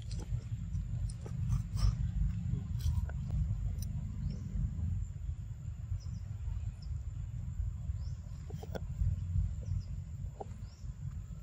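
Outdoor forest ambience, mostly a low, uneven wind rumble on the microphone, with scattered rustling clicks and a few short high chirps.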